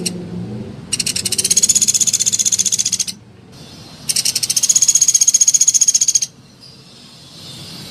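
Sunda pygmy woodpecker (pelatuk beras) giving two rapid, high trills of about two seconds each, about a second apart, with the tail end of an earlier trill right at the start.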